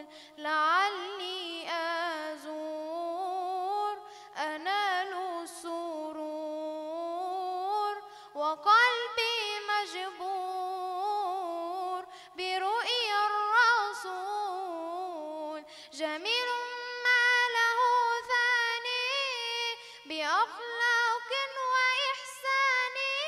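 A boy singing an Islamic devotional nasheed (inshad) unaccompanied into a microphone. He draws out long ornamented notes whose pitch glides and wavers, in phrases of a few seconds with brief breaths between them.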